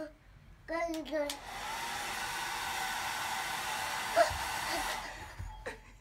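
Handheld hair dryer switched on about a second and a half in, blowing steadily with a faint whine for about three and a half seconds, then switched off and winding down. A child's short voice comes just before it starts.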